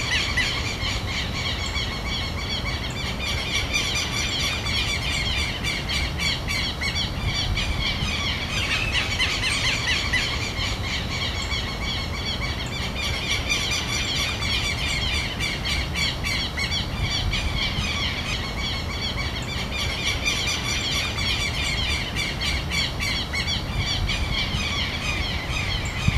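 A continuous chorus of rapid, high squeaky calls from many birds, over a low steady rumble.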